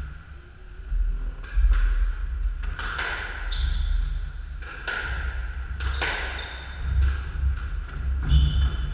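A squash rally: the ball cracks sharply off rackets and the court walls every second or two, with shoes squeaking and footsteps thudding on the wooden court floor.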